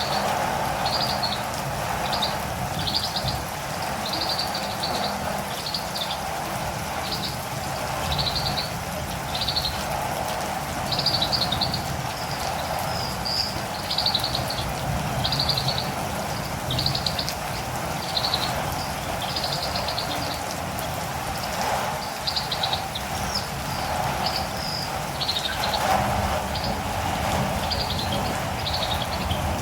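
Catirumbava birds calling in short, high chirps about once a second over a steady hiss of falling rain.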